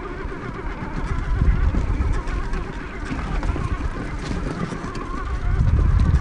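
Traxxas TRX-4 RC crawler's electric motor and geared drivetrain whining, the pitch rising and falling with the throttle, over a low rumble.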